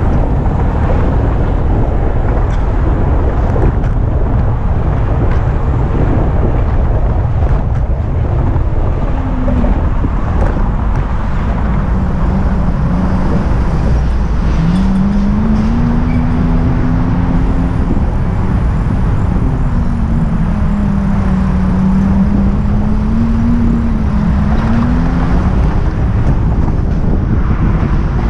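Steady, loud rumble of traffic on the bridge roadway alongside, mixed with wind on the microphone. About halfway through, a vehicle's engine drone wavers up and down in pitch for around ten seconds.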